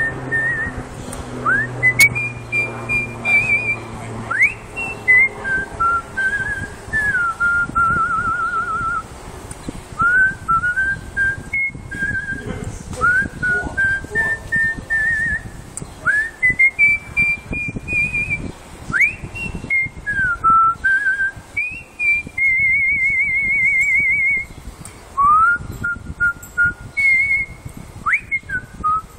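A man whistling a tune through pursed lips. Most notes slide up into pitch, and a few held notes are warbled with a fast trill.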